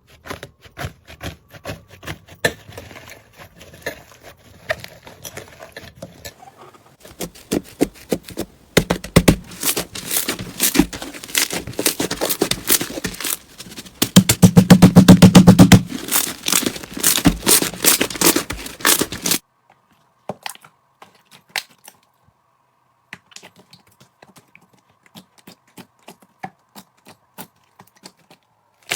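Slime being pressed, squeezed and poked by hand, giving rapid sticky clicks and pops. The sound is sparse at first, becomes a dense, loud crackle in the middle with a heavy squelching burst, then falls back to scattered clicks.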